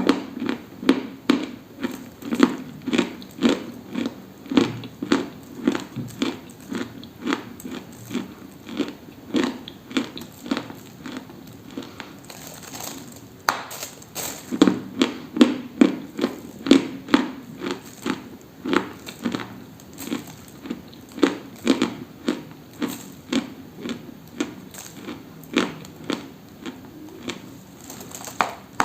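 Dry, brittle crunching close to the microphone, a steady run of crisp crunches at about two a second, with a pause of about two seconds partway through.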